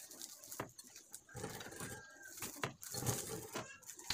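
Hands working wiring inside a scooter's front cowl and fastening a plastic cable tie: scattered small clicks and rustles of plastic and wire.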